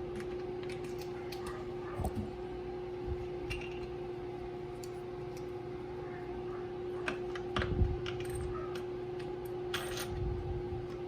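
Scattered light clicks and metallic clinks of a bidet's mounting bolt and hardware being handled and fitted to a toilet, with a sharper knock about eight seconds in. A steady hum runs underneath.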